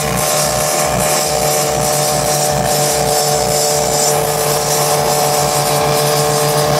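Steady drone of motor vehicles cruising at highway speed, with even road and wind noise.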